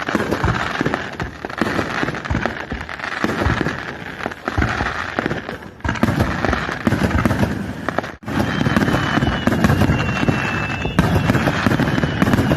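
Aerial fireworks going off in quick succession: many sharp bangs over a dense crackle.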